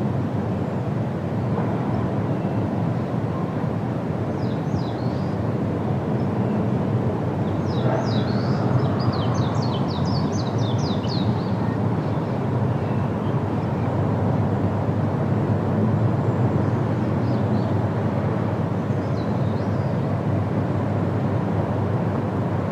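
Rhine Falls waterfall giving a steady, full roar of falling water. A small bird chirps over it a few times, once in a quick run of short chirps about a third of the way in.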